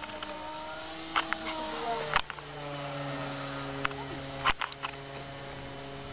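Electric motor and propeller of a Skyartec RC Pitts S-2A biplane model in flight: a pitched hum whose pitch slowly shifts, settling into a lower steady hum about two seconds in. Several sharp clicks come through it.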